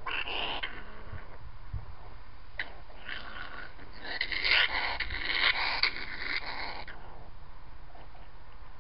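Grey fox giving rough, raspy vocalizations that PANN files near a cat: a short burst at the start, then a louder run of calls from about three seconds in until a couple of seconds before the end.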